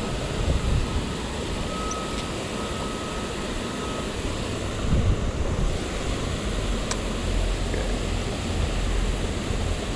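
Steady rush of water pouring over a spillway, with wind rumbling on the microphone in the second half.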